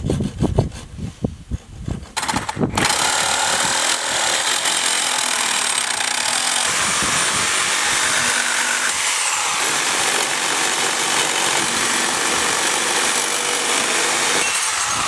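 A few strokes of a hand hacksaw on a metal tub drain pipe. Then, about two and a half seconds in, a reciprocating saw starts and runs steadily, its blade cutting through the pipe.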